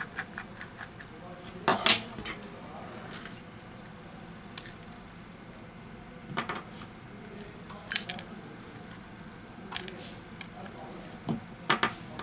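Small, irregular metallic clicks and taps as a precision screwdriver and tweezers work the tiny screws and a metal bracket inside a smartphone. The loudest single click comes about two seconds in.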